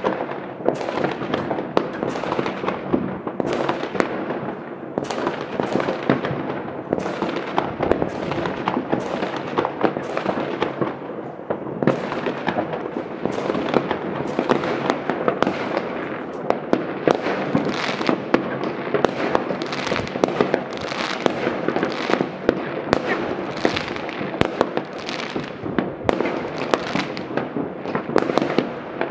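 Many fireworks and firecrackers going off at once from several places: a dense, unbroken crackle of bangs and pops with no pause.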